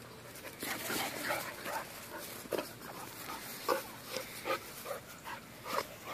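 Two dogs play-fighting, with a string of short, high whines and yelps at about two a second over the scuffle of paws on grass.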